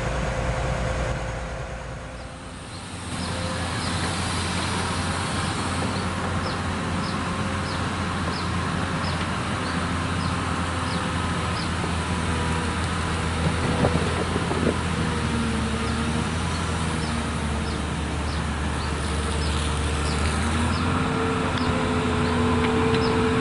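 Komatsu PC200 excavator's diesel engine running steadily under work, with a hydraulic whine that steps up in pitch twice as the long arm moves.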